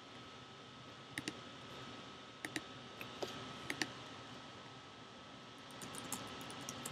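Several quick clicks, mostly in pairs, then a rapid run of computer keyboard typing near the end, over a faint steady high-pitched tone.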